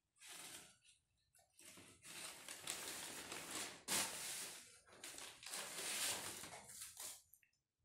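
Large sheet of brown paper crinkling and rustling as a toddler grabs and pulls at it, in irregular surges that are loudest about four seconds in.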